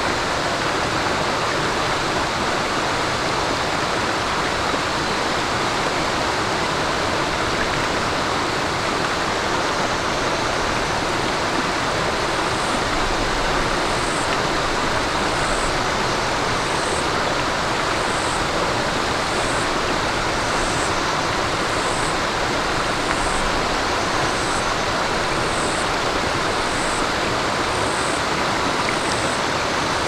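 Mountain stream running over rocks: a steady rush and babble of water. About twelve seconds in, a short high chirp starts repeating, a little more than once a second.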